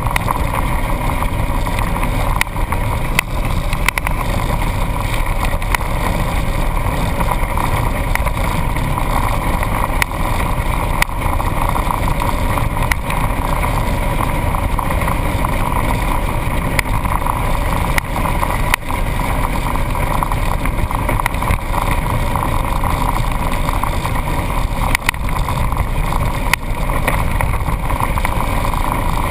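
Off-road vehicle's engine running steadily while it drives over a sandy dirt track, heard from a camera on the hood, with a few sharp knocks now and then.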